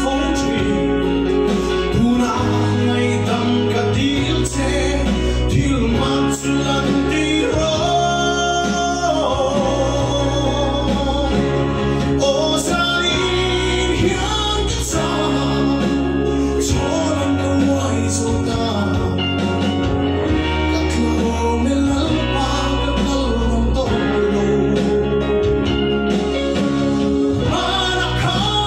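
A man sings a Mizo gospel song into a handheld microphone, amplified over instrumental backing music.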